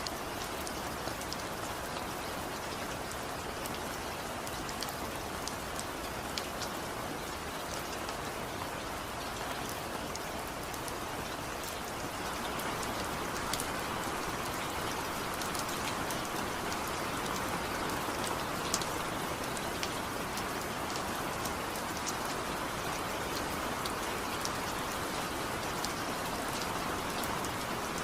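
Steady rain falling, with individual drops ticking sharply on a hard surface over the constant patter; the rain grows a little heavier about halfway through.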